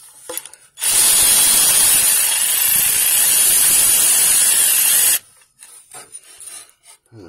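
Aerosol spray can discharged in one continuous hissing burst of about four seconds, starting about a second in and cutting off sharply.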